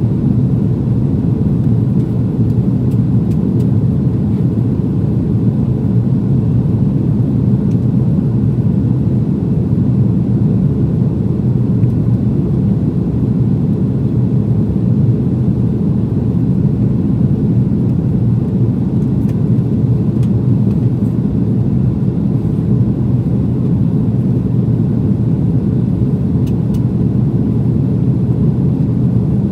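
Steady low rumble inside the cabin of an Airbus A330-200 airliner in flight, the mixed noise of its jet engines and the air rushing past the fuselage.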